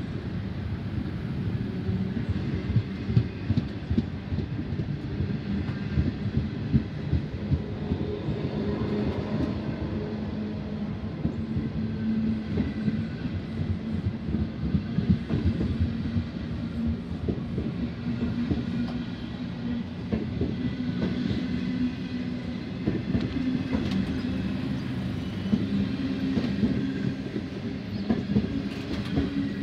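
Indian Pacific's stainless-steel passenger carriages rolling past on the track, wheels clattering over the rails with frequent irregular clicks over a steady low hum.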